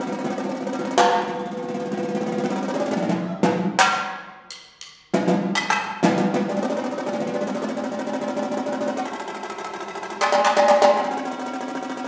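Set of five concert toms played with sticks in rolls and accented strokes, the drums at several different pitches. A few seconds in, the sound dies away almost completely, then loud strokes start it up again, and there is a louder accented burst of rolling near the end.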